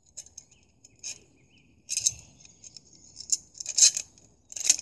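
Light metallic clinks and jangles of a home-made metal hanger being handled and looped through the handles of a steel Crusader cup, in irregular little bursts, the loudest near the end.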